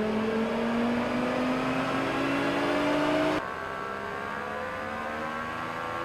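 Acura NSX drivetrain running on a rolling-road test stand, its pitch rising steadily as the car speeds up on the rollers. About three and a half seconds in the sound cuts to a quieter, higher whine that keeps slowly rising.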